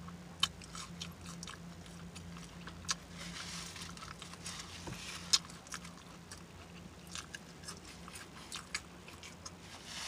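Close-up mouth sounds of a person chewing a fish sub and fries with lips smacking. There are wet clicks every so often, the loudest about half a second, three seconds and five and a half seconds in, over a faint steady low hum.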